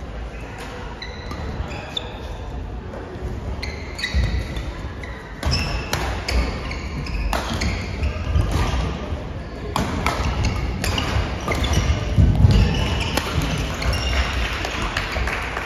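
Badminton rally in an echoing sports hall: sharp clicks of rackets striking the shuttlecock, short high squeaks of court shoes on the mat, and thudding footfalls, busier from about four seconds in, with faint voices in the background.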